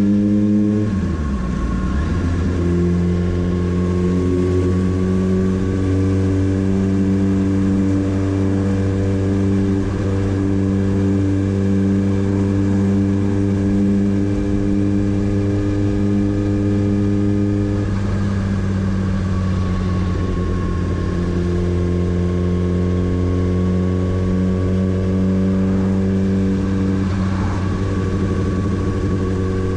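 Motorcycle engine running at a steady road speed with a strong, even note. Its pitch dips briefly about a second in and shifts down and back up again about two-thirds of the way through, as the throttle changes.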